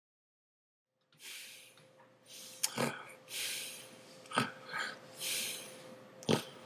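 Silence for about a second, then faint room tone with a steady hum, several soft hisses spaced a second or two apart, and a few sharp clicks.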